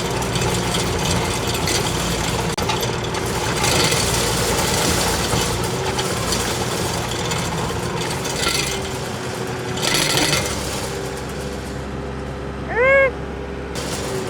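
Diesel engine of a compact loader running steadily, with louder surges of working noise every few seconds. Near the end comes a loud, short squeal whose pitch rises and falls.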